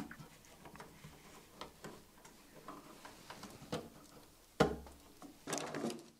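Small plastic clicks and taps as a wired pluggable terminal connector is pushed onto a circuit board's terminal strip, with a louder knock about four and a half seconds in and more handling noise just after.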